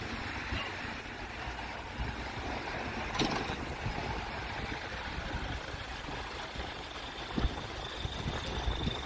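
Airbus A380-800's four jet engines at takeoff thrust, a steady distant roar as the airliner lifts off and climbs away, with low buffeting on the microphone. A sharp click about three seconds in.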